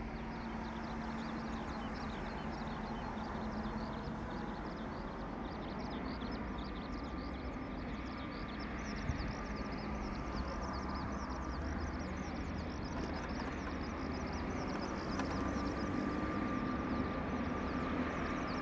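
Distant De Havilland Canada Dash 8-400 on final approach: the steady drone of its two Pratt & Whitney PW150A turboprops and six-blade propellers, growing slowly louder as it nears.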